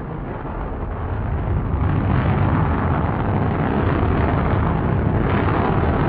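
Rocket motor firing in a static test: a continuous loud, rushing roar that builds over the first two seconds and then holds steady.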